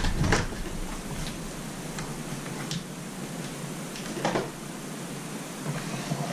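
Metal engine parts being handled on a workbench: a light click just after the start, a few faint ticks, and a short scrape about four seconds in, over a steady low hum.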